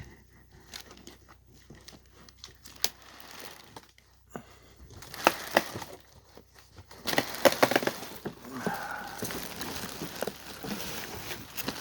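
Plastic wrapping and cardboard box packaging being handled and crinkled, with scattered knocks. The crackling gets louder about five seconds in and again about seven seconds in, then goes on as a steady rustle.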